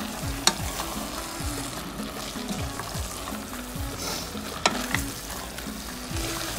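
Chopped cabbage in chermoula sauce sizzling in a pot while it is stirred with a wooden spoon. The spoon knocks sharply against the pot twice, about half a second in and again near five seconds.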